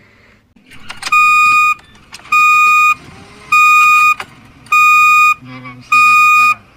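A Toyota Corolla's electronic warning chime beeping: five evenly spaced, steady beeps, each about half a second long and a little over a second apart.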